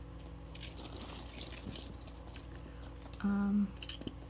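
Small metal jewelry pieces clinking and jingling as they are handled. About three seconds in comes a brief, low, steady tone, the loudest sound here.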